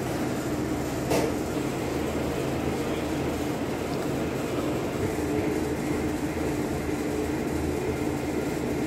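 Steady low mechanical hum with a few steady tones, like running machinery, and one short knock about a second in.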